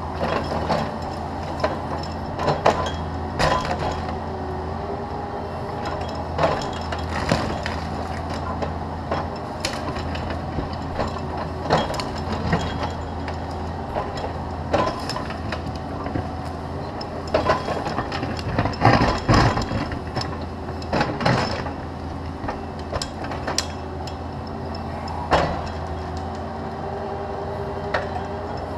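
Cat 305.5E2 mini excavator's diesel engine running steadily under hydraulic load while it digs out a tree stump, with repeated sharp knocks and cracks as the bucket tears at the stump and its roots.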